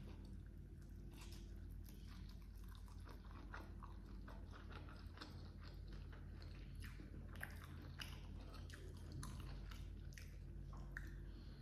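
A person chewing and biting a mouthful of grilled rice with baby squid and petai beans: many small, irregular wet clicks, over a steady low hum.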